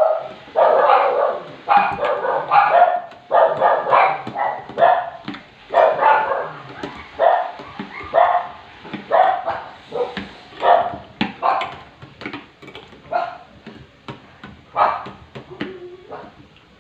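A dog barking over and over in short, uneven runs of barks, growing fainter near the end.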